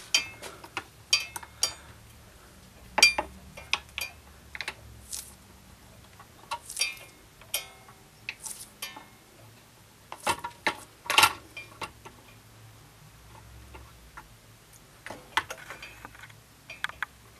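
Scattered light clicks and metallic clinks of small tools and objects being handled and set down, irregular and a dozen or more in all. The loudest comes a little past the middle.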